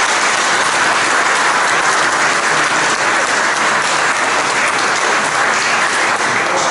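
Audience applauding, steady clapping.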